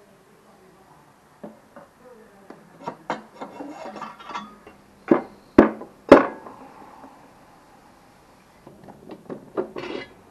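Aluminium Moto Guzzi V65 crankcase, with its steel cylinder studs fitted, being handled and turned over on a wooden bench: a run of clicks and knocks, three loud clunks around the middle, and a further cluster of knocks near the end.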